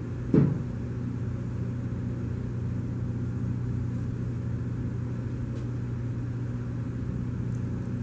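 A steady low hum, with one thump about half a second in as the loaf of soap is set down on the soap slicer.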